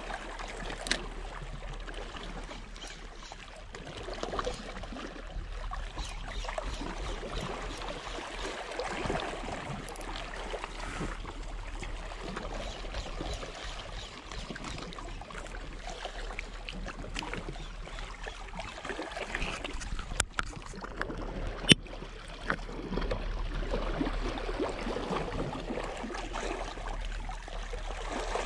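Small waves lapping and sloshing against breakwater rocks in an uneven wash, with a few sharp clicks, the loudest about 22 seconds in.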